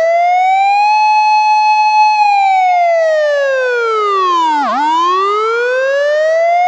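A siren wail. The pitch climbs, holds for about a second, sinks to a low point nearly five seconds in, then climbs again.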